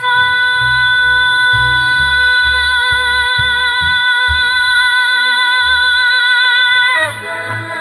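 AI-generated (Suno) female vocal holding one long closing note with vibrato over a pulsing bass line in the backing music. About seven seconds in, the note ends and the quieter accompaniment carries on.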